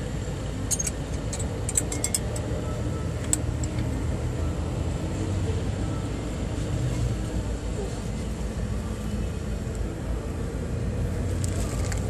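A few light clicks of brake parts being handled in the first three seconds or so, over a steady low vehicle rumble.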